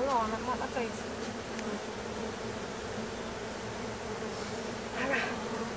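A large honey bee colony buzzing as a steady low hum, the bees stirred up by having their comb in the wall cavity broken open and cut out.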